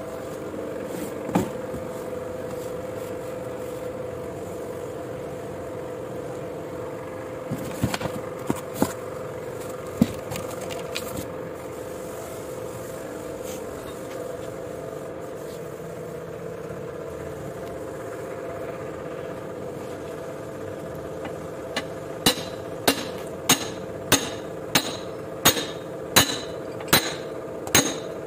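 A steady mechanical hum with a few scattered metal knocks, then, from about two-thirds of the way through, a regular run of hammer blows, about three every two seconds. The blows are a hammer striking a steel plate to drive a new cylinder liner down into a Yuchai diesel engine block.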